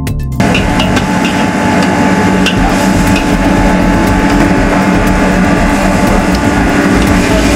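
Char koay teow being stir-fried in a wok over a fan-blown charcoal stove: a loud, steady rush with a low hum, and now and then the metal spatula clanking and scraping against the wok.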